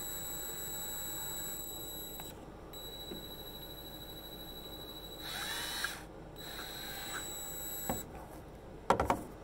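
3D-printed plastic pump housings being handled, rubbing and knocking, over a steady high-pitched whine that breaks off several times. Three sharp plastic clicks come in quick succession near the end.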